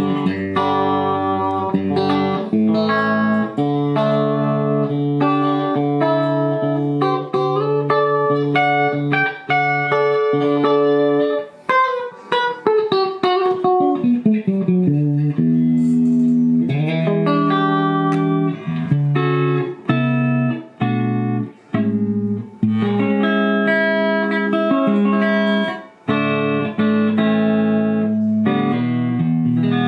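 Fender Japan ST62-50 Stratocaster electric guitar being played, sustained chords and single-note phrases, with a descending run of notes about twelve seconds in.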